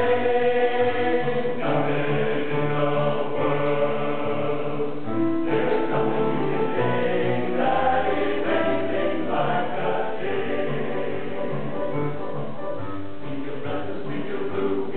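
Men's choir singing in close harmony, moving through held chords.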